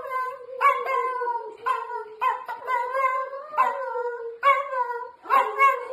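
Dachshund howling: a string of sharp yelps, somewhat under two a second, each sliding down in pitch into a long held howling note.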